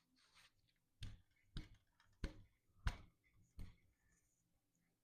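Five sharp knocks, roughly one every 0.6 seconds, as a lock-on grip is worked onto the end of an aluminium mountain-bike handlebar.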